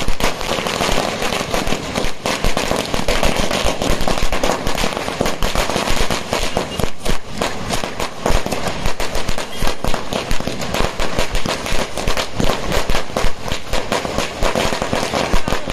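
A long string of firecrackers laid out on the ground, going off in a rapid, unbroken run of bangs, many each second.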